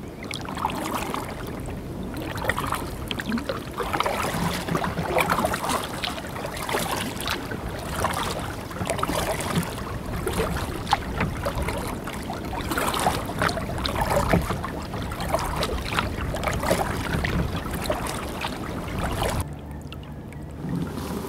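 Double-bladed kayak paddle strokes: the blades dipping and splashing water on alternate sides in a repeated rhythm as the kayak is paddled, stopping shortly before the end.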